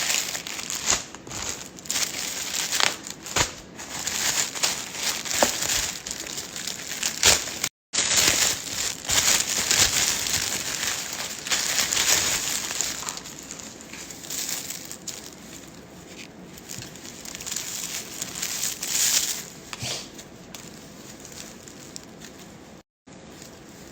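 Packaging being unwrapped by hand: irregular crinkling, rustling and crushing of wrapping, busier and louder in the first half and softer after about halfway. The sound drops out completely twice for a moment.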